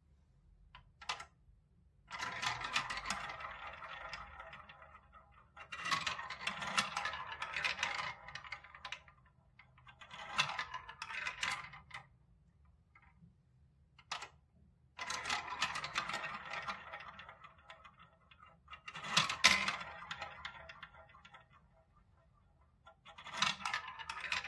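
Small plastic balls rolling and rattling through the plastic tubes of a building-block marble run, one run after another. There are about six runs, each lasting two to four seconds, with a few small clicks before the first.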